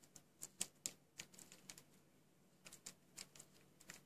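Rapid light clicks, like small buttons being pressed, in two quick bursts: a run through the first couple of seconds, then a second run about a second later.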